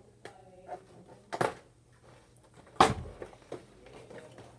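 Handling noises from cardboard and plastic action-figure packaging: a sharp tap about a second and a half in, then a louder thud a little before three seconds, with faint scattered ticks and rustles between.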